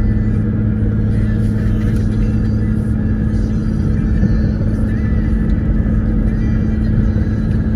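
Cabin noise of a Mercedes on the move: a steady low drone of engine and tyres with a constant hum, and music playing underneath.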